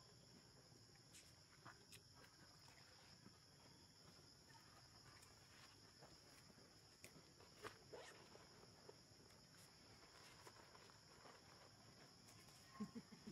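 Near silence outdoors: a faint, steady high-pitched insect chorus, with scattered faint clicks and a quick run of soft clicks near the end.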